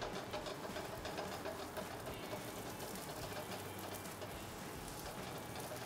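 Chapati frying in melted butter in a pan over a gas flame: a steady, low sizzle with fine crackling.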